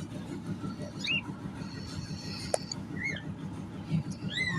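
A pet bird giving a few short squeaky chirps, each rising and falling in pitch, spaced a second or more apart. There is one sharp click about halfway through, over a steady low rumble.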